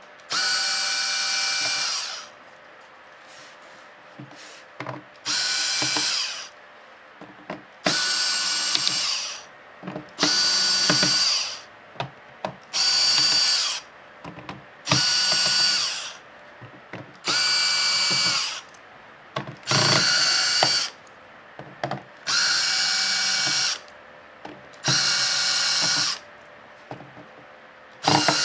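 Cordless electric screwdriver backing out the bottom-case screws of a laptop: about eleven short whirring runs of a second or two each, with light clicks in the gaps between them.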